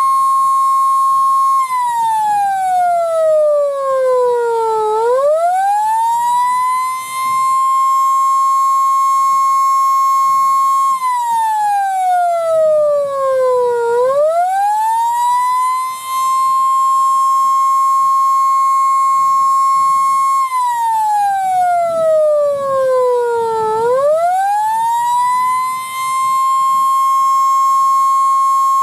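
A restored Edwards Model F electric siren wailing, very loud and high-pitched. It holds a steady high tone, then three times winds down in pitch over about three seconds and quickly climbs back up to full pitch.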